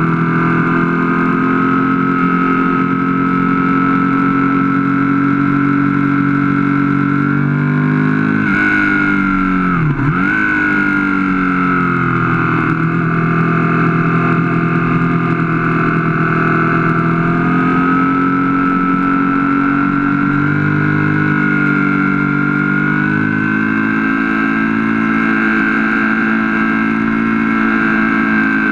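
Aprilia Falco's 998 cc 60-degree V-twin engine running under way on track, heard from a camera mounted on the bike. Its pitch dips sharply and climbs back about ten seconds in.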